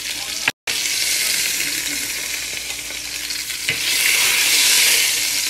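Hot olive oil and beef fat sizzling in a frying pan just emptied of seared short ribs. The sizzle drops out for a moment about half a second in and grows louder about four seconds in.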